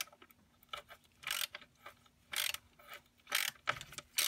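Hand ratchet clicking in short bursts, about once a second, as it is swung back and forth to turn a 15 mm drill bit by hand through the aluminium housing of a Ford power transfer unit (PTU).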